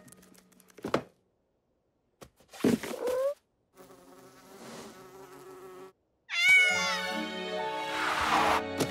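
Rapidly edited cartoon sound effects and wordless character voices, with short silent gaps between them: a sharp hit about a second in, a brief rising squeaky cry near three seconds, a falling squeal at about six and a half seconds that runs into a held tone, and a noisy rush near the end.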